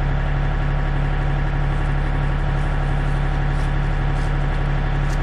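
John Deere 3025 compact tractor's diesel engine running steadily at a constant speed, with no change in pitch or load.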